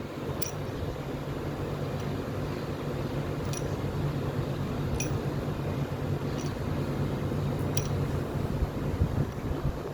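A steady low mechanical hum with about five light, sharp clinks spread through it.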